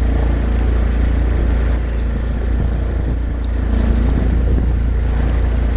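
Boat engine running steadily at low speed, a constant low rumble with an even pulsing.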